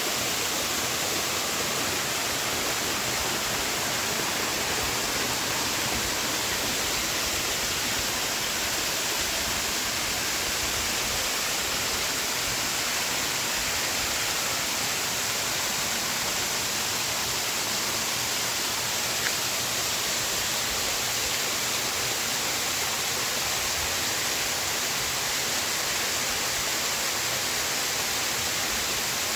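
Creek cascade: water falling and rushing steadily in an even, unbroken hiss.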